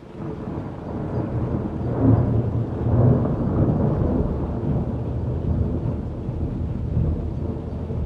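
Rolling thunder: a deep rumble that swells over the first two seconds, peaks about two and three seconds in, then keeps rumbling on a little lower.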